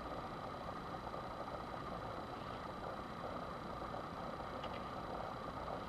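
Steady low hum and hiss of room noise, with a faint tick a little before the end.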